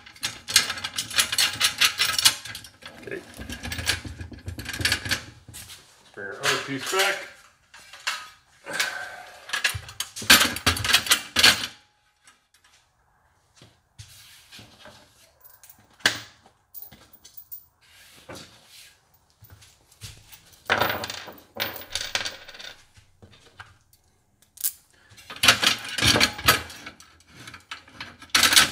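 Metal hardware clinking and rattling as bolts, nuts and washers are handled and fitted by hand through the steel hinge plates of an aluminium/steel folding loading ramp. The clinks come in bursts with short quiet pauses between them.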